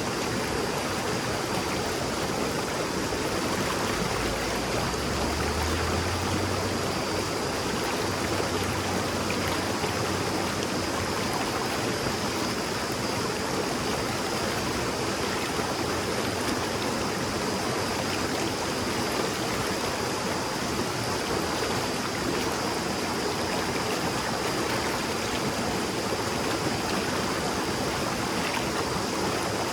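Shallow river babbling steadily, an even rush of running water.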